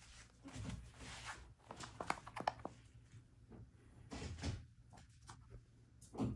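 Close handling noise: scattered soft rustles and light knocks in a few short clusters, from a hand stroking a prairie dog's head near the microphone.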